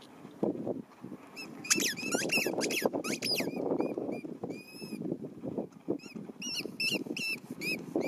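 A dog's squeaky ball being mouthed and chewed, giving runs of short, high squeaks that bend in pitch, starting about two seconds in.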